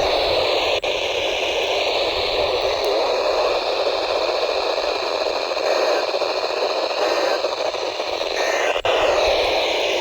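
Weather-band FM radio receiver hissing with static: an open channel with no clear station, the hiss wavering as the weak signal fades in and out. The hiss cuts in abruptly at the start.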